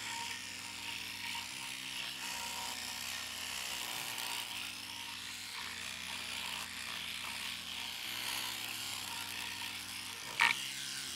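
A linear pen sander with a rectangular bit and adhesive-backed sandpaper buzzes steadily as its reciprocating pad scrubs along the shaft of a grey SLA resin print. This is the first sanding pass, taking off support marks. One brief louder knock comes near the end.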